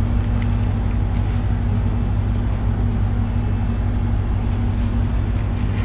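Steady low hum of a container ship's machinery heard on the navigation bridge, with a constant droning tone running through it.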